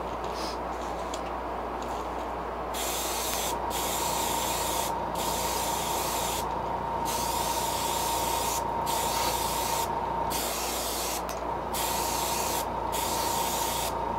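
Airbrush spraying paint in short passes, its hiss cutting off and starting again many times as the trigger is released and pressed. A faint steady whine sits under the hiss from a few seconds in.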